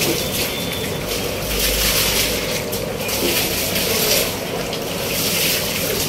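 Refined cooking oil being poured in a steady stream into a large pot of mutton korma masala on the fire.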